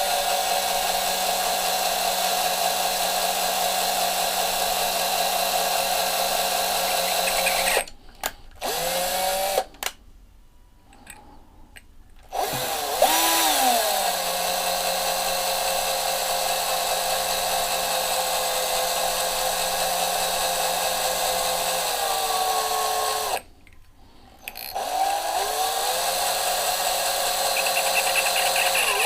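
Small electric drill drilling into diecast metal, running at a steady whine and stopping and restarting a few times, its pitch gliding as the motor spins down and back up. It is boring out a hole that will then be threaded with a tap.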